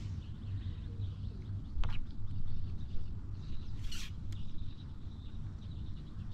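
Wind buffeting the microphone at a pond's edge, with faint bird chirps. A click comes about two seconds in, and a short swish about four seconds in as the fishing pole's float rig is lifted out of the water.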